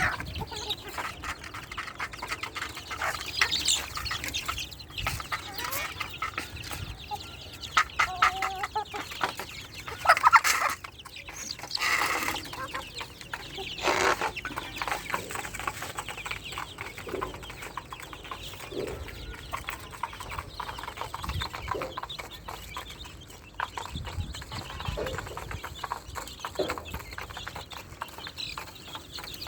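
Backyard chickens clucking, with scattered short calls and some louder squawks near the middle.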